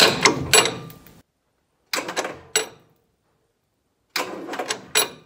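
Three short bursts of the starter motor turning over a Land Rover Series 3 2.25-litre petrol engine, with sharp metallic clanks in each. The coil is disconnected so the engine cannot fire: the starter's jolt is used to break loose the crankshaft starter-dog nut against a wrench bar braced on the axle.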